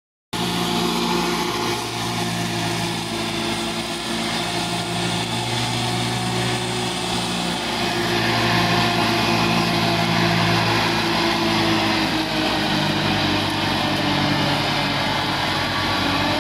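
Small tractor's engine running steadily under load as it drives a Path Breaker S4 four-blade swing-arm orchard mower cutting tall grass. The engine note drops a little in the last few seconds.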